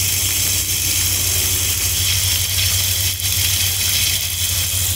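Water running steadily from a small outdoor faucet low on a brick wall and splattering onto the ground, a constant hiss over a steady low hum.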